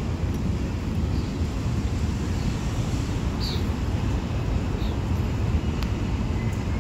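New York City subway train approaching an elevated station, a steady low rumble with a few faint, short high squeaks.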